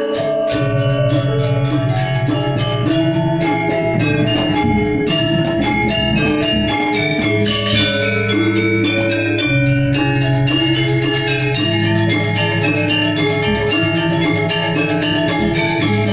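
Balinese gong gede gamelan in seven-tone saih pitu tuning playing: struck bronze metallophones and gongs ring in layered, held tones under a steady stream of quick melodic strokes.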